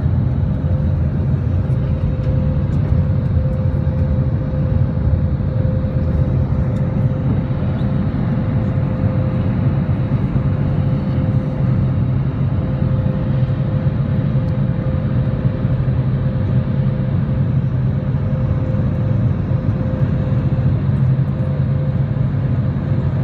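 Steady cabin noise inside an Airbus A320 climbing after takeoff: the drone of its jet engines and rushing air, with a steady hum held underneath.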